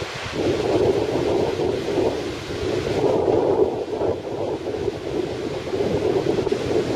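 Strong wind blowing on the microphone over breaking surf: a steady rushing rumble that swells and dips with the gusts.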